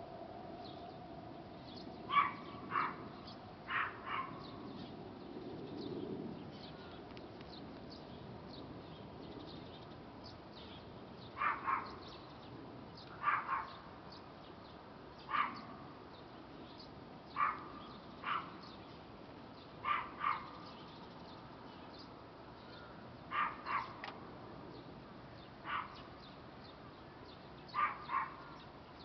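A dog barking: short barks, mostly in pairs, every couple of seconds, with a pause of several seconds early on.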